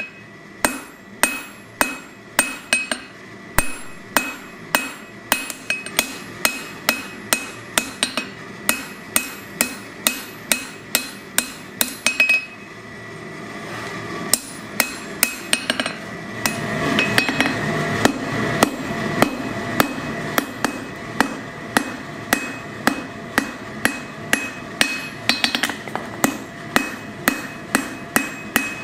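A hand hammer strikes a red-hot steel bar on an anvil in a steady rhythm of about two blows a second, and the anvil rings after each blow. The blows pause for a couple of seconds about halfway through, then resume while a low background noise swells for a few seconds.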